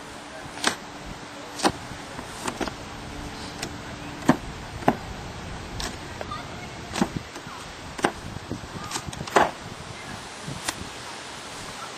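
Playing cards being dealt and slapped down onto a cardboard box: sharp, short snaps at irregular spacing, about one a second.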